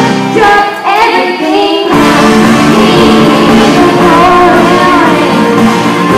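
A girl singing through a microphone and PA over a backing track. The fuller accompaniment, with bass and drums, comes in about two seconds in.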